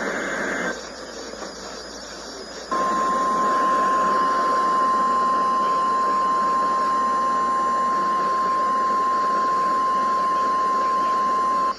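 NOAA Weather Radio Emergency Alert System signal received over radio static. The tail of a SAME digital header burst is followed by a couple of seconds of hiss. Then the steady 1050 Hz warning alarm tone sounds for about nine seconds and cuts off suddenly, the alert that precedes a severe thunderstorm warning message.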